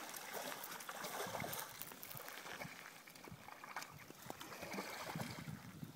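Shallow river current running past the bank: a steady rush of water with small lapping ticks.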